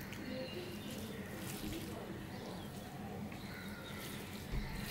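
Fingers mixing rice with dal and curry on a stainless steel plate: soft, wet squishing with small clicks of fingers on the plate, and a dull thump near the end.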